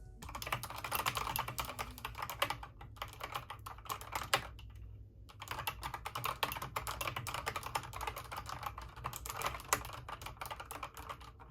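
Typing on an Akko Sailor Moon Crystal 5108S mechanical keyboard: a fast, continuous run of key clicks, broken by two short pauses about three and five seconds in.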